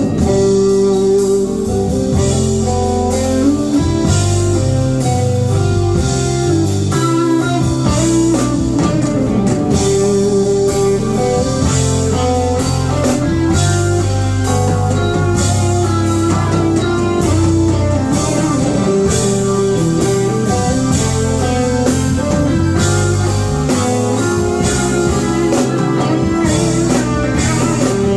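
A live band playing a blues-tinged groove: guitar lines over a steady bass and drum kit with cymbals.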